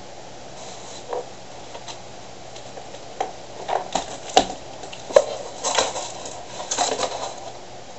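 Small hard objects being handled and set down: light clicks and clatter, then a busier run of knocks and rattles from about three seconds in, the two loudest about a second apart, over a steady faint hum.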